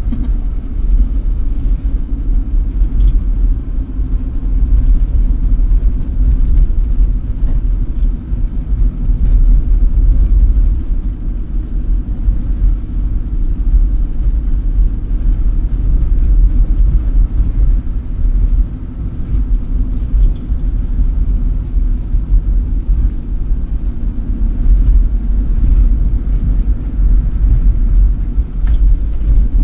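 Steady low rumble of a vehicle travelling along a paved road, with wind buffeting the microphone.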